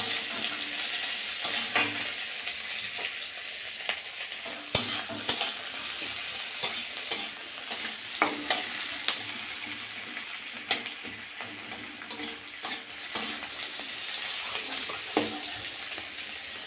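Sliced onions sizzling in hot oil in a metal kadai, with the irregular scrapes and clinks of a metal spatula stirring them against the pan.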